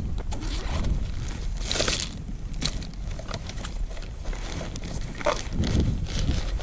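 Hands rummaging through a nylon camo backpack: irregular rustling and small clicks as the fabric and the gear inside shift, with a louder rustle about two seconds in.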